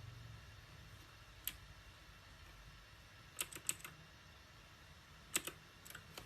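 Mechanical keyboard keys pressed singly and sparsely: one clack, then a quick run of about four, then a few more near the end, with gaps between.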